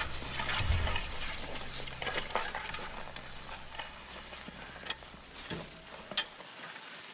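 The last low note of a song dying away under a crackling, rustling noise, with a few sharp clicks near the end, the loudest about six seconds in.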